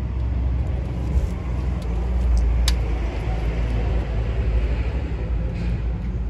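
Fire burning in a combined pellet and wood stove, a steady low rumble of draft through the slightly opened front air vent, as wet pine logs catch on a strong flame beneath. A few crackles, with one sharp pop about halfway through.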